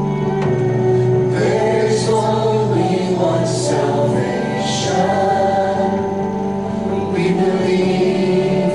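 Worship band playing a contemporary worship song, with voices singing along in sustained lines.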